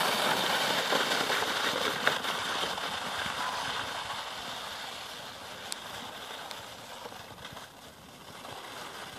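Two sleds hissing as they slide over crusty snow, the scraping fading steadily as they move away.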